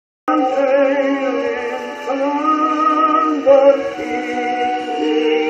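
Victrola phonograph playing a shellac record: music with a wavering, vibrato melody line, thin-sounding and with no deep bass.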